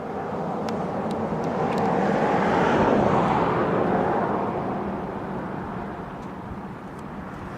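A vehicle passing by: a rushing sound that swells to its loudest about three seconds in, then fades away.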